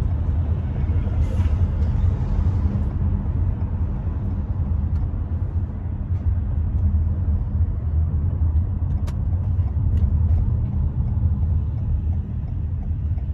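Road noise inside a moving car's cabin: a steady low rumble of engine and tyres, with a few faint ticks.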